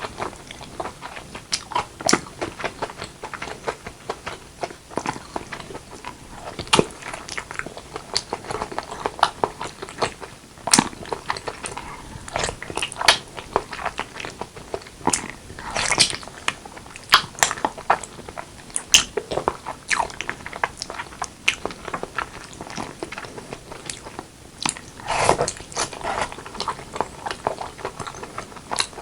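Close-miked eating of braised pork leg with rice: a steady, irregular run of bites, chewing and wet mouth smacks, with sharp clicky crunches.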